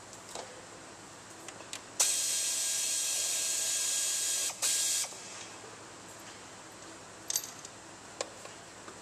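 A power ratchet runs steadily for about three seconds, with a short break near the end, spinning a bolt out of the timing belt cover on a Hyundai 2.7L V6. A couple of light clicks of tool on metal follow.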